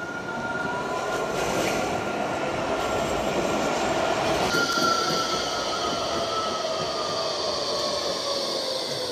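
Nottingham Express Transit light-rail tram running past close by on street track. A steady rolling sound carries thin whining tones that glide down in pitch in the second half.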